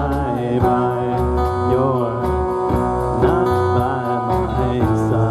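Live rock band playing: acoustic and electric guitars, electric bass and a drum kit keeping a steady beat, with a bending melodic line over the top.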